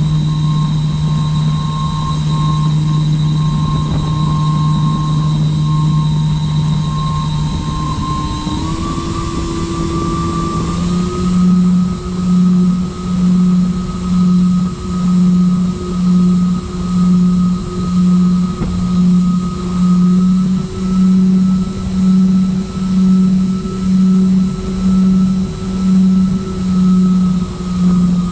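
Twin electric motors and propellers of a MyTwinDream FPV model plane running at steady throttle, heard from on board. About eight to eleven seconds in the pitch steps up, and from then on the sound swells and fades about once a second.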